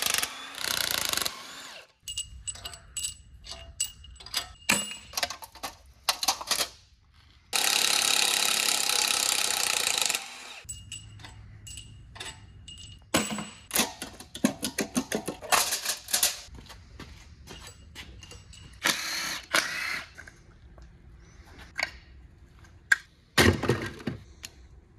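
Cordless impact wrench on a Chevrolet LS3 V8 block, running in short bursts as it undoes bolts, with one longer burst of about three seconds a third of the way in. Between the bursts come metal clinks and clatter of tools and parts, a hand ratchet clicking quickly for a few seconds in the middle, and a heavier metal knock near the end.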